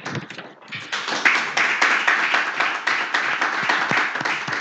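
A small group of people applauding. A few scattered claps build into steady, dense applause about a second in.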